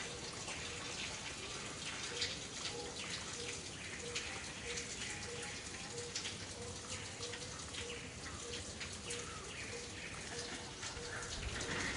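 Outdoor forest ambience: a steady hiss scattered with many quick, light ticks and patters, and a soft note repeating about twice a second.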